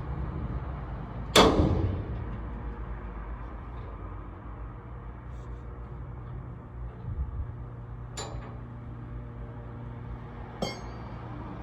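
Metal clangs of a crowbar against a padlock as it is pried open: one loud ringing strike about a second in, another around eight seconds in, and a lighter knock near the end, over a steady low hum.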